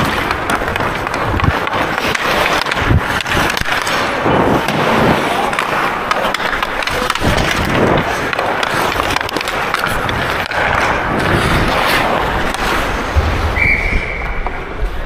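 Ice hockey skates carving and scraping across the ice, heard close up from a camera worn by the skater, with a few sharp knocks of sticks or puck. About 13 seconds in, a short steady whistle blows, typical of a referee's whistle stopping play.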